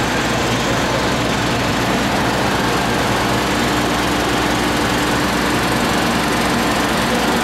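CLAAS Tucano 430 Montana combine harvester's diesel engine running at a steady speed. A faint steady whine comes in for a few seconds midway.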